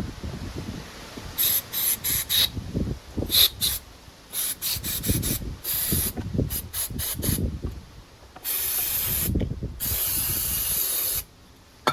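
Aerosol carburetor cleaner sprayed in a series of short hissing bursts, then two longer blasts of about a second each near the end, flushing water out of a Briggs & Stratton mower carburetor that was full of water from contaminated fuel.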